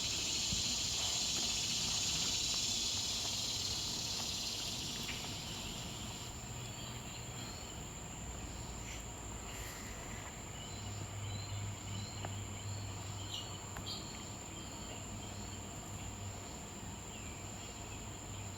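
A swamp cicada's buzz, loudest at the start and fading away over about six seconds. Under it runs the steady high-pitched trill of Say's trig crickets, and faint bird chirps come through after the buzz dies away.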